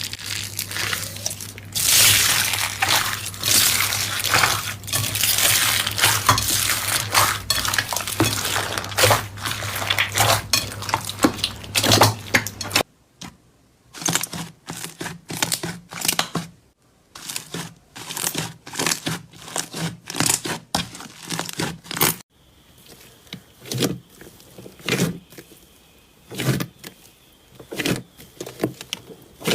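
Crunchy slime being squeezed and poked: a dense run of crackling clicks and crunches. The sound changes abruptly about a third and two thirds of the way through, with a low hum under the first part.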